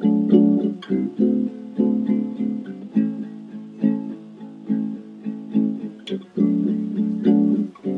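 Background music: an acoustic guitar playing chords in a slow, steady rhythm, with no singing.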